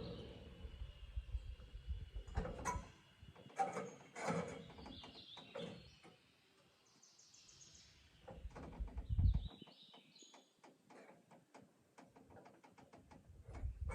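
Faint birdsong, with short high chirps scattered through, over light clicks and knocks. A low machine rumble dies away in the first few seconds, and a single dull thump comes about nine seconds in.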